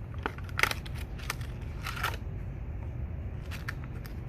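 Knife packaging being opened and handled by hand: a series of short clicks and rustles, over a steady low hum.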